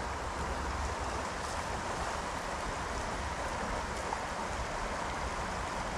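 Steady rush of flowing river water, an even noise with a low rumble beneath it.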